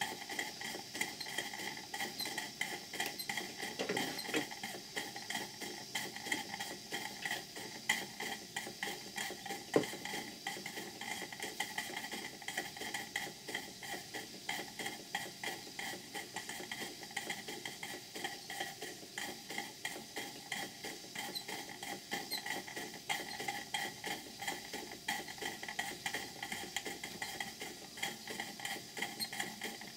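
A hypocycloidal steam engine and a Vulcan beam engine, both models, running together on steam: a rapid, even patter of exhaust beats and working parts over a steady hiss.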